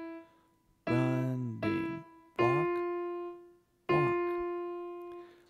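Piano keyboard playing a slow single-note melody, one hand. A note rings out at the start, then two quick repeated E's, then two longer held F's a step higher, each struck note decaying away: the E, E-E, F, F opening of a beginner's song in walk, running-running, walk, walk rhythm.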